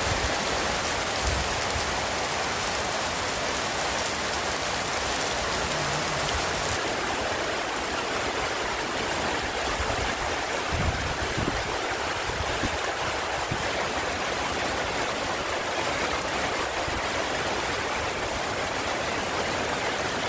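Summer rain falling steadily, an even rushing hiss of water. The sound's highest part thins out about seven seconds in.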